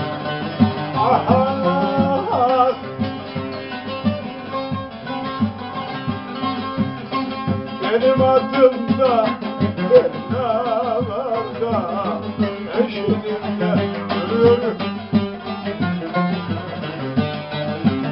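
Oud and bağlama playing a Turkish folk tune together in dense plucked notes, with a voice singing long wavering notes at times.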